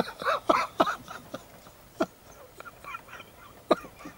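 A man's short non-speech vocal sounds, like breathy laughs or throat noises: a quick run of them in the first second, then two single ones, the last near the end.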